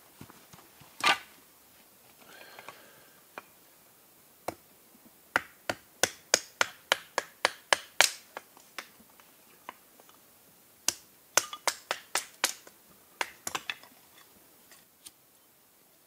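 Hatchet chopping small pieces of firewood into kindling. Sharp, short strikes of the blade into wood come in two quick runs of about three a second, with single knocks between.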